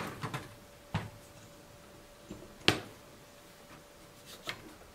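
A few light metallic taps and clicks of a steel socket and hammer on a hydraulic cylinder gland, the socket serving as a driver to seat a new seal. They are spaced unevenly, and the sharpest comes a little past halfway.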